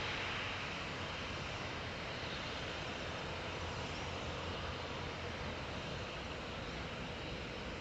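Steady low rumble and hiss of distant jet engines mixed with wind, fading slightly over the first second and then holding level.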